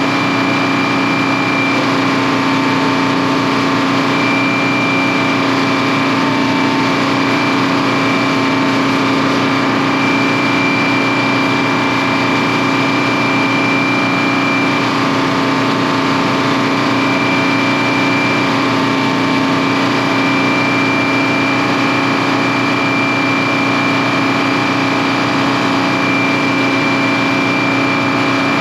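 The sawmill's diesel engine (the bus motor) running steadily at a constant speed, with a thin steady high whine over it.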